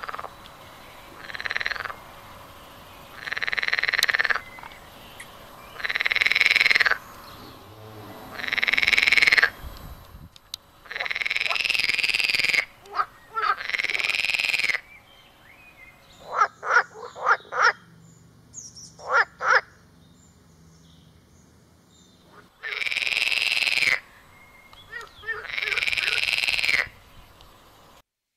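An animal calling over and over, each call about a second long and rising then falling in pitch, every two to three seconds. A run of short, sharp notes comes about two-thirds of the way through.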